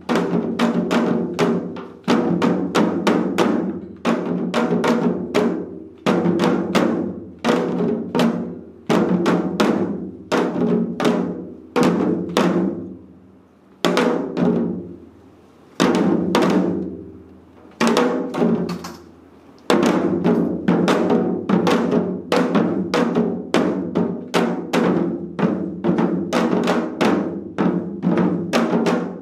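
Four janggu (Korean hourglass drums) played together in seoljanggu style: fast runs of sharp strokes. In the middle they thin to a few single strokes about two seconds apart, each left to ring out, then the fast strokes resume.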